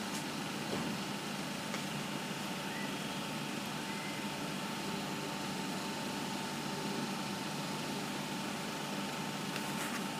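Steady mechanical hum and rush of air from a running pulverized-coal burner system at an open boiler firebox, with a faint steady whine.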